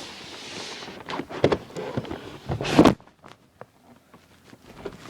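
Cardboard packaging of a keyboard being handled: a rustling hiss, then several knocks and a loud scraping slide that cuts off sharply just under three seconds in, followed by a few faint taps.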